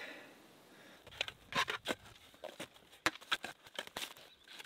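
Steel shovel digging into twiggy forest soil: a run of irregular short, sharp crunches as the blade is driven in and earth is turned, starting about a second in.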